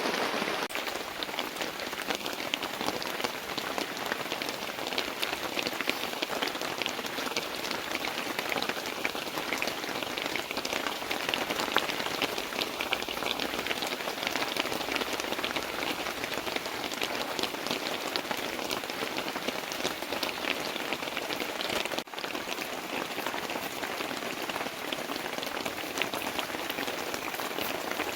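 Heavy rain falling steadily, a dense patter of many drops hitting surfaces; it drops out for an instant once, about two-thirds of the way through.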